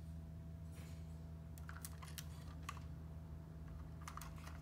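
Scattered light clicks of plastic Lego pieces as a brick-built fire truck is handled and turned over in the hand, over a faint steady low hum.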